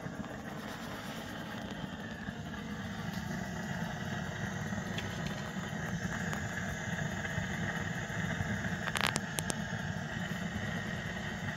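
Natural gas room heater running with a steady low rumble and a thin, high, whining tone that swells slightly in the middle, the noise it makes after cold air has entered the room. A few sharp clicks come about nine seconds in.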